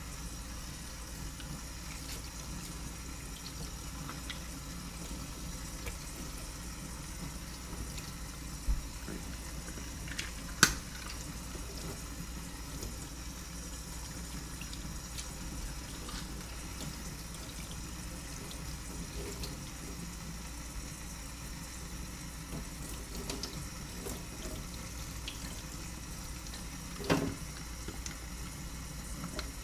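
Water running steadily from a faucet into a sink, with a few sharp knocks, the loudest about eleven seconds in.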